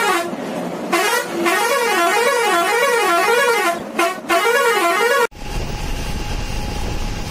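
Musical air horn of a tour bus playing a warbling tune, its pitch swooping up and down about twice a second, with two short breaks. It cuts off abruptly about five seconds in, and the steady drone of the bus's engine and road noise takes over.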